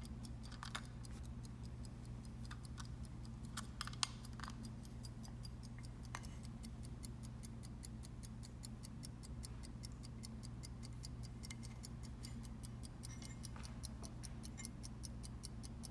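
Elgin size 18 key-wind pocket watch movement ticking steadily and rapidly, about five even ticks a second, over a low hum. There are a few louder clicks in the first four seconds.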